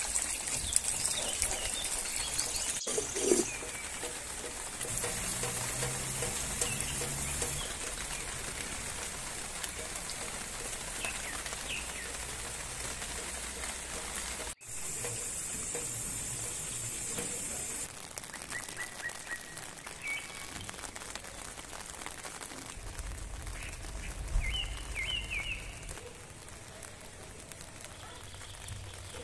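Rain falling steadily as an even hiss, with a few short bird chirps in the second half.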